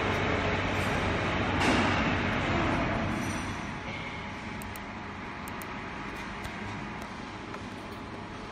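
Common rail injector test bench running, its drive motor and high-pressure pump giving a steady mechanical hum and rush. The rush swells briefly about two seconds in, and the running grows quieter after about three seconds.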